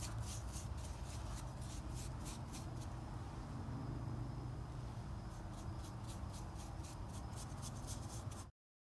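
Small hand blade scraping along the edge of a painted wooden cutout letter in quick, repeated scratchy strokes, about four a second, with a lull of a couple of seconds in the middle, over a low steady hum.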